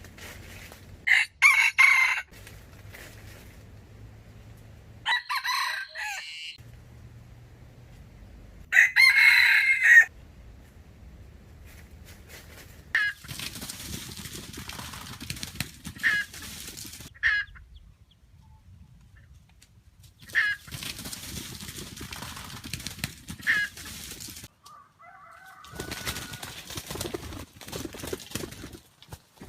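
A wild rooster crowing three times, each crow lasting a second or so, followed by stretches of rustling with short sharp clicks.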